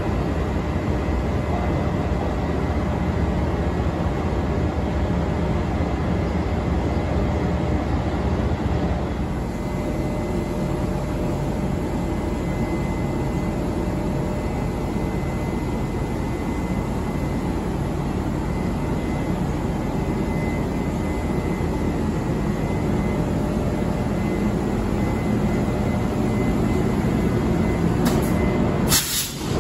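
E200-class electric locomotive running at the head of a passenger train as it starts off and pulls slowly forward: a steady hum with a thin steady whine above it.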